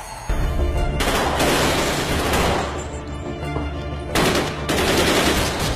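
Rapid automatic rifle fire from a TV drama action scene, in two long bursts: one about a second in and another past the four-second mark, over a dramatic music score.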